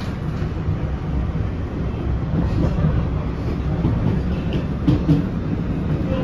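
PATH PA5 rapid-transit car running on the rails, heard from inside the car: a steady low rumble of wheels and motors. A few sharp clicks of wheels over rail joints, two close together about five seconds in.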